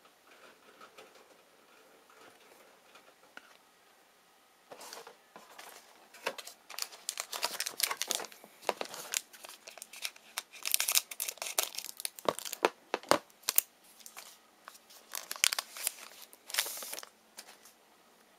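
A trading-card pack wrapper being torn open and crinkled by hand. It is quiet for the first few seconds, then comes a long run of crackling and ripping that goes on in bursts almost to the end.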